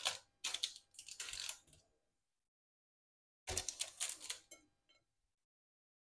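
Quick small taps and crinkles of potato slices being set down one by one on a parchment-lined metal baking tray, in two short bursts with a silent gap between.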